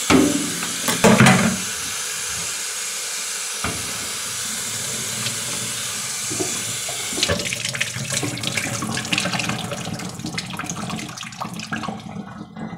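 Kitchen faucet running into the sink as chopped cabbage is rinsed: a steady stream of water for about the first seven seconds, then uneven splashing and rustling as the wet cabbage is moved about and drained.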